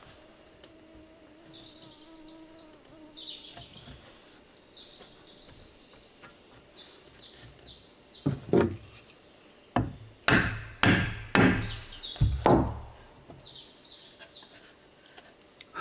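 A hammer striking wooden boards, about eight sharp blows in quick groups past the middle. Small birds chirp repeatedly before and after.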